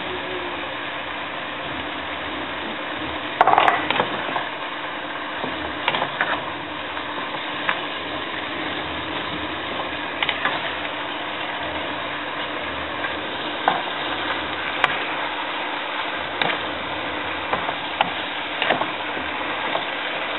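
Beef and sliced cucumbers sizzling steadily in a nonstick pan while being stirred with a wooden spatula. The spatula scrapes and knocks against the pan now and then, loudest about three and a half seconds in.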